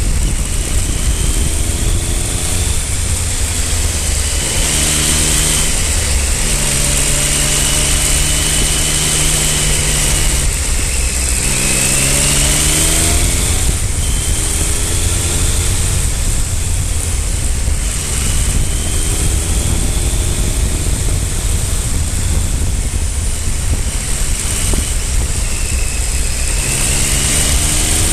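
Triumph Speed Triple 955i's inline three-cylinder engine pulling through the gears while riding. Its note rises and drops back at each shift, five times or so, over a steady rush of wind and road noise.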